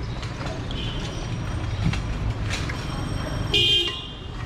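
A vehicle horn honks once, briefly, about three and a half seconds in, over a steady low rumble of street traffic.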